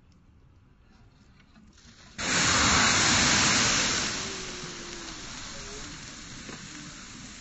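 Water hitting burning engine oil sets off a sudden loud rush of flame about two seconds in, as the water flashes to steam and throws the oil up in a fireball. It stays loud for about two seconds, then fades to a steady rushing of flames.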